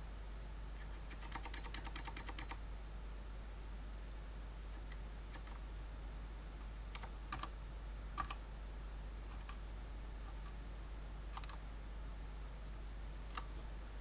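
Keystrokes on a Fnatic Gear miniSTREAK keyboard with Cherry MX Silent Red switches, which are dampened linear switches. A quick run of about a dozen presses comes about a second in, then single presses every second or two.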